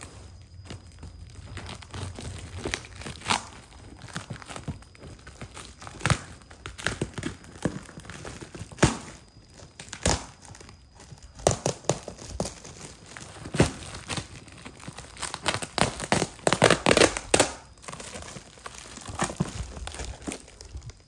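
Plastic parcel wrapping and packing tape being torn open by hand: irregular crinkling and short tearing rips, busiest about three quarters of the way through.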